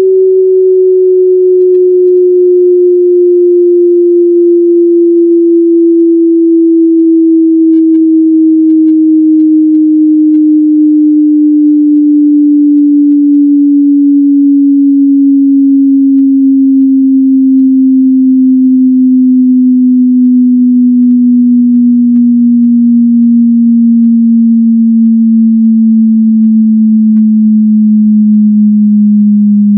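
A loud, pure electronic sine tone gliding slowly and steadily downward in pitch throughout, with faint, sparse high ticks scattered above it.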